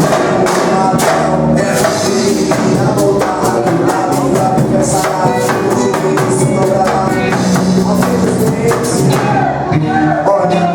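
Band playing a Portuguese-language gospel song, mostly instrumental at this point, with drum kit and tambourine keeping a steady, busy beat under the melody.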